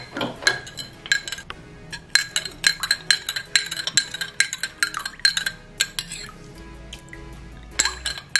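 Metal teaspoon stirring in a drinking glass, clinking quickly and repeatedly against the sides as powdered juice mix dissolves in water. The clinking thins out about six seconds in and picks up again near the end, with background music underneath.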